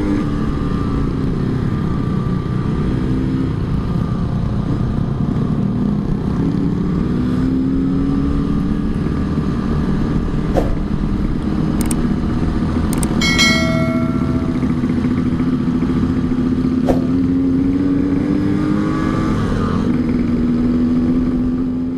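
Yamaha RX-King two-stroke single-cylinder motorcycle engine running under way, its note rising and falling gently with the throttle, over a low wind rumble. A short high beep sounds about two-thirds of the way through.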